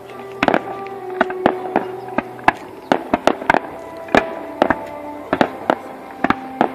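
Aerial fireworks bursting in a display: a quick, irregular run of sharp bangs and pops, about three a second.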